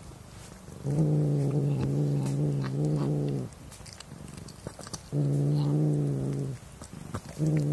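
Domestic cat growling low and steadily over the mouse it is eating: three long growls, about 2.5 s, 1.5 s and a final one starting near the end, with short pauses between them.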